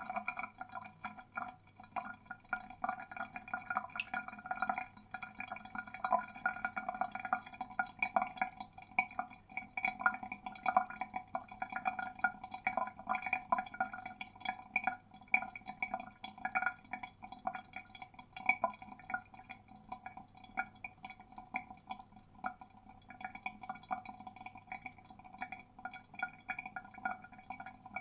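Water draining down a drain, trickling and gurgling in a fast, irregular patter of drips and plinks with a hollow ringing tone.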